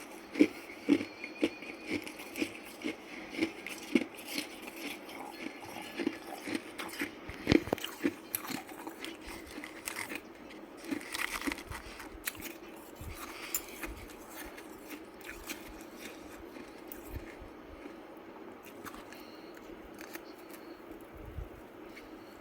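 Ice being bitten and chewed close to the microphone: a run of sharp crunches about two a second for the first eight seconds, then sparser, softer crunching.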